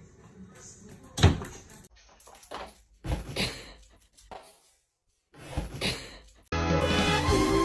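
A few sudden knocks and thumps, like a door or cupboard being bumped, the loudest about a second in. Background music starts abruptly near the end.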